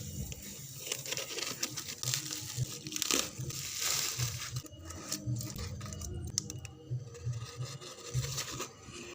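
Parcel packaging being torn open and crinkled, with irregular ripping and rustling.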